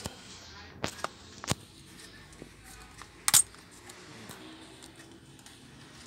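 Sharp metallic clicks and knocks from parts being handled against a microwave oven's sheet-metal chassis: three quick ones in the first second and a half, then a louder one about three seconds in.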